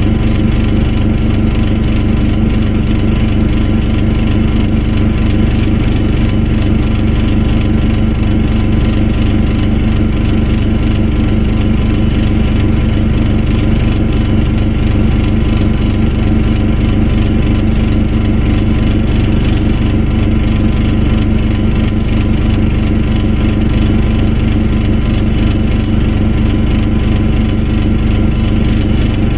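An engine running steadily at a constant speed, with no change in pitch or level, and a steady high-pitched whine over the engine note.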